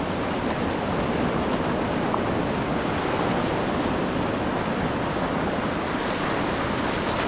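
Loud, steady rush of whitewater rapids churning around a canoe as it runs down through them.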